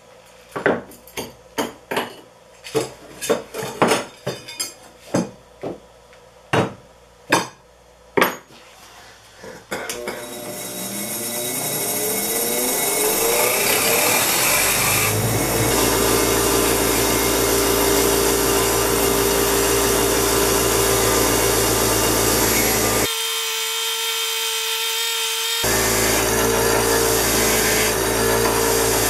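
A run of about a dozen and a half sharp clicks and knocks, then a bench grinder starts up, its whine rising as it comes to speed and settling into a steady run. A steel file is held against its buffing wheel.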